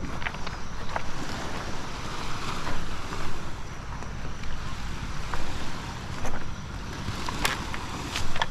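Wind buffeting the microphone over a steady, even wash of noise, with a few sharp clicks near the end.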